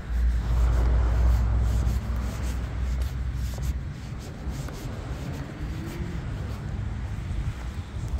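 Wind rumbling on the microphone, heavy for about the first half and then easing, over a steady hiss.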